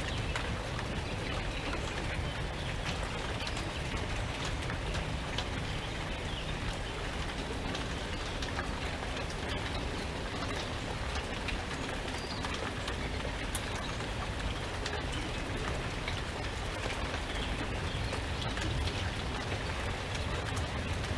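Steady rain falling, with scattered sharp drop taps over a low, even rumble that fits wind.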